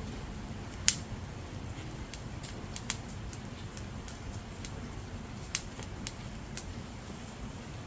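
Dry firewood burning, crackling with sharp, irregular pops, the loudest about a second in, over a steady low noise.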